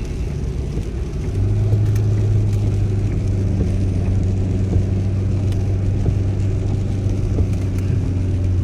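Car on the move, heard from inside the cabin: steady engine and road rumble, with a low steady drone coming in about a second and a half in and holding on.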